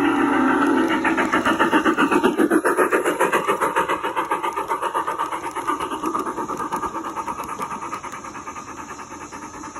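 Garden-scale model train rolling past close by, with a rapid, even clatter of about five or six beats a second that fades as the train moves on.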